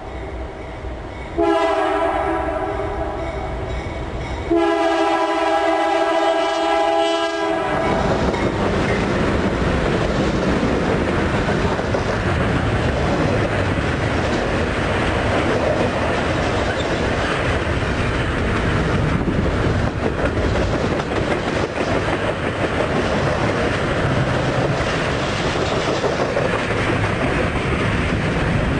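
Locomotive horn sounding two long blasts, each about three seconds, followed by the steady rumble and clatter of a train passing close by on the rails.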